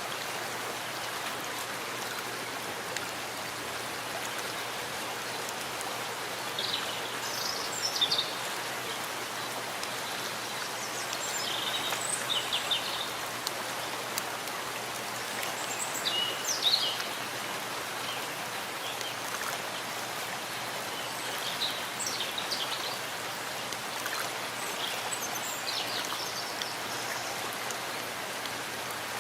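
Steady rain falling in a forest, an even hiss of drops on the foliage, with short high bird chirps breaking through every few seconds.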